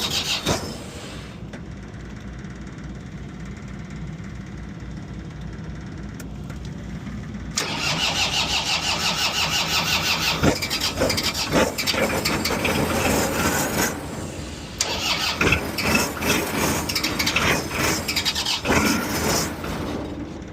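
Small diesel pony motor being cranked twice in freezing cold, two long stretches of fast, even cranking with a short pause between, the engine struggling to start. A steady low engine rumble runs underneath before the first cranking.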